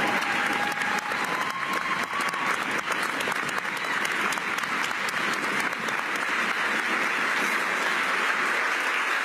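Sustained applause from an audience of many people, an even clatter of hand claps.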